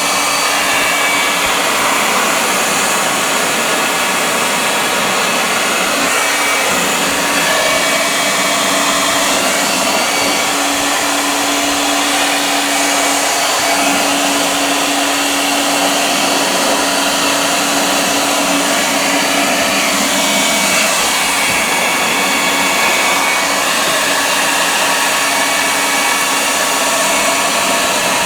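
Handheld hairdryer running steadily on a cool, low setting, a continuous blowing noise with a steady motor hum, used to melt ice off a refrigerator's evaporator coil and fan.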